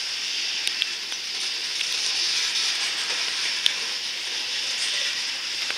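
Covered hopper cars of a freight grain train rolling past on steel wheels in rain: a steady high hiss with scattered sharp ticks and little low rumble.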